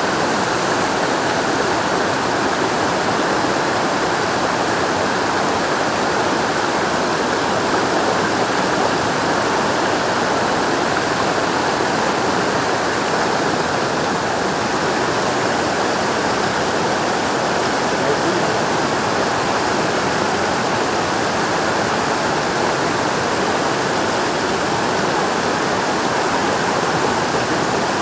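River rapids rushing over boulders: a loud, steady rush of white water.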